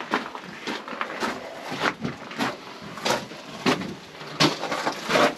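Footsteps crunching and scuffing on loose rock and gravel in a narrow mine tunnel, a steady walking pace of about one step every two-thirds of a second.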